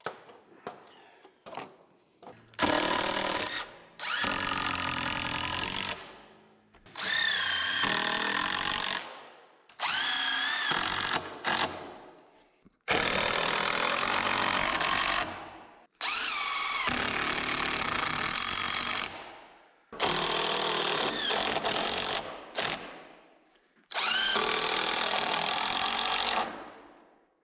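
DeWalt 20-volt cordless drill driving screws into wooden ceiling framing. It runs in about eight separate bursts of one to three seconds each, its whine wavering in pitch as each screw bites and seats.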